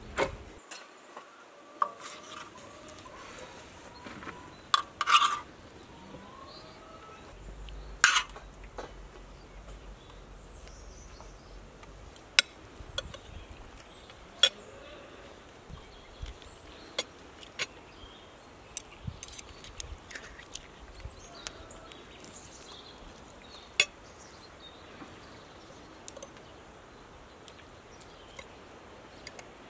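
Forks and spoons clinking and scraping on china plates and a metal serving pan, scattered light clinks with a few louder ones.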